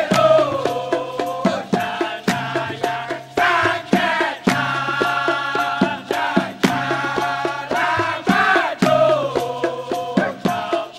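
Dikir barat chorus of men singing together in a Kelantanese folk chant, over rhythmic hand clapping and regular percussion beats.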